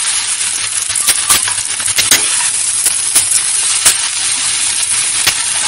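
Potatoes and onions sizzling in a stainless steel kadhai while a metal spoon stirs them, clinking and scraping against the pan about eight times at an uneven pace.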